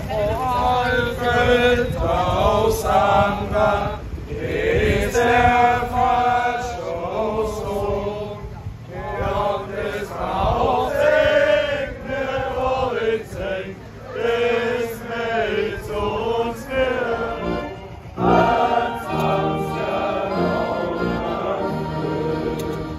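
A crowd of people singing a song together in unison.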